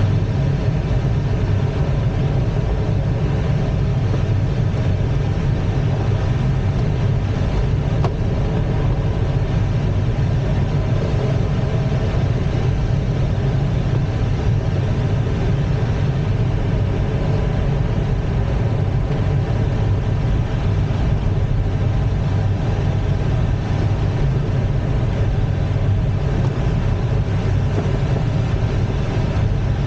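Steady in-flight noise inside the cockpit of an ASK-21 two-seat glider: rushing air over a constant low hum, unchanging throughout.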